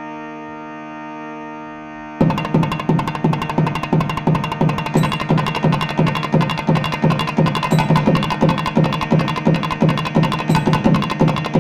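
A steady drone, then about two seconds in the thavil drums of a nadaswaram ensemble come in suddenly with a quick, loud, even rhythm of strikes over it.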